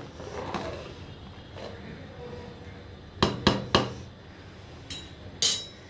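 A metal spoon clinking against a steel cooking pot: three quick knocks a little past three seconds in, then two more near the end, over the low bubbling of rice boiling in water.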